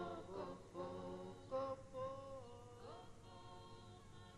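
Faint a cappella singing of long held notes, fading away toward the end.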